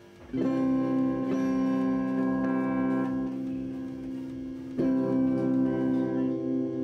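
Vault strat-style electric guitar played clean through a small Palco practice amplifier: a chord is strummed about a third of a second in and left ringing, then another is struck near five seconds and rings on. The guitar is set for a soft, acoustic-like sound for accompanying singing.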